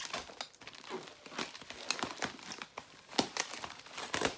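Parcel packaging crinkling and rustling as it is unwrapped by hand, with a stream of irregular crackles and a little tearing.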